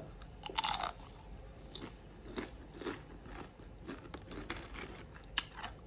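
A person chewing food close to the microphone: soft wet mouth clicks and small crunches, with one brief louder noise about half a second in.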